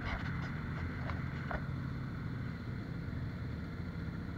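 Off-road motorbike or ATV engine running steadily, with a few sharp knocks and rattles in the first second and a half.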